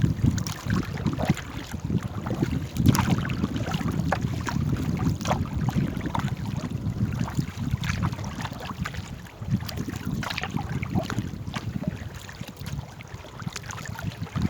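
Wind buffeting the microphone in a steady, uneven low rumble, with scattered faint clicks and splashes of water around a small paddled boat.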